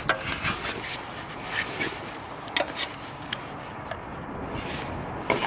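Screwdriver scraping around a seized, corroded ABS sensor in its bore, with scattered sharp clicks of metal on metal as it is worked free.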